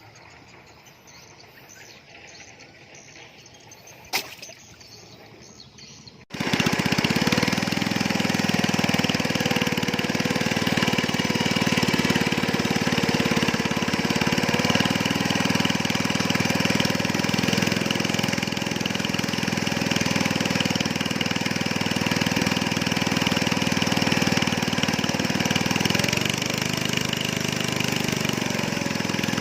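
Quiet for about six seconds, with a single click about four seconds in. Then a small engine starts sounding abruptly and runs steadily at a slightly wavering pitch.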